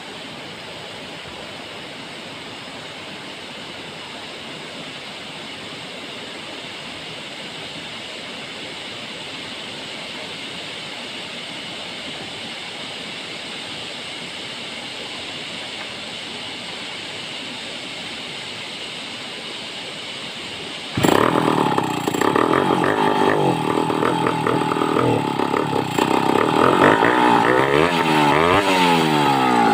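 A steady background hiss, then about two-thirds of the way in a large two-stroke chainsaw, a home-built Stihl 070 clone, comes in suddenly and loud. It runs and revs, its pitch rising and falling several times near the end.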